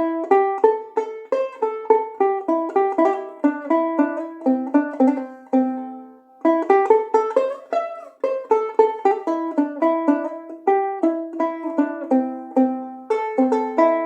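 Martin Romas BP-1 RD banjolele, a ukulele-scale instrument with a banjo drum body and membrane, picked in a melody of bright, percussive plucked notes that die away quickly. About six seconds in, a low note is left to ring and fade before the picking starts again.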